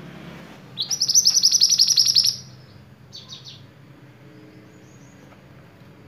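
Male minivet (mantenan) singing: a loud, rapid trill of about ten high notes a second, starting about a second in and lasting about a second and a half, followed by a short phrase of two or three notes. A faint low hum sits underneath.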